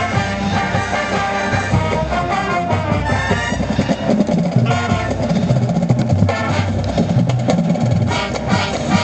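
Marching band playing: brass chords for the first three seconds or so, then the drums carry on with a rhythmic pattern and the horns drop back.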